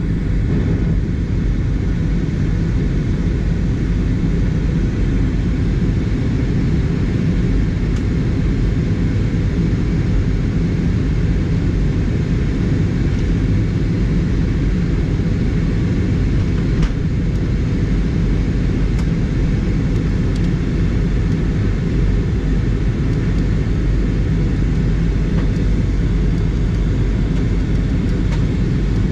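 Steady, loud low rumble of engine and airflow noise inside the passenger cabin of an Airbus A320.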